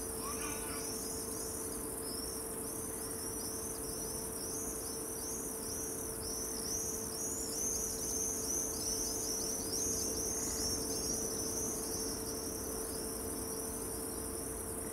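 Crickets chirping in a dense chorus of quick, repeating high chirps, over a steady high-pitched hiss and a faint steady hum.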